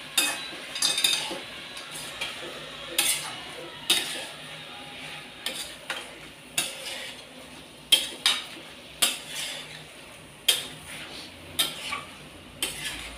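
Spatula stirring boiled potatoes and spinach masala in a metal pan: irregular scrapes and clinks of the spatula against the pan, about one a second.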